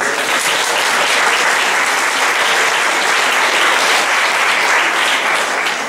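Audience applauding steadily, a dense clapping of many hands welcoming an announced guest.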